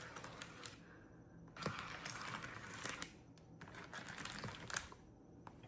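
Crinkling, rustling handling noise in two stretches, about a second and a half in and again near four seconds, with a few light clicks.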